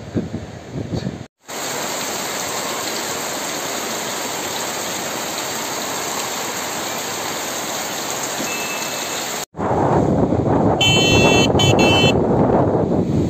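Heavy rain falling steadily and evenly on roofs and a wet yard, water streaming off the eaves, cut in between two stretches of wind buffeting the microphone at the seashore. The wind stretch near the end is louder and rougher, with a brief, broken high-pitched tone in it.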